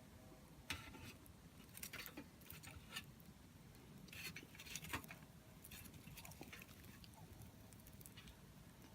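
Small wood fire crackling faintly, with sparse sharp snaps and pops from the burning wood, a few close together about two seconds in and again around four to five seconds in.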